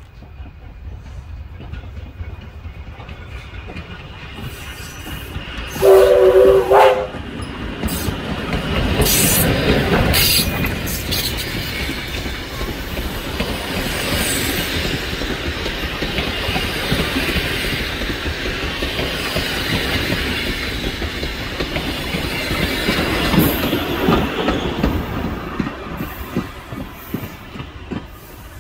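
Victorian Railways K class 2-8-0 steam locomotive sounds one short whistle blast about six seconds in. It then passes close by hauling a train of passenger carriages, whose wheels click rhythmically over the rail joints as the train rolls past and fades away near the end.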